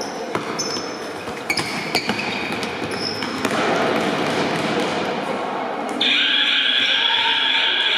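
Echoing sports-hall noise from an indoor futsal match: voices of players and spectators, a few sharp thuds of the ball being kicked, and short high squeaks of shoes on the hall floor. About six seconds in, music cuts in suddenly and takes over.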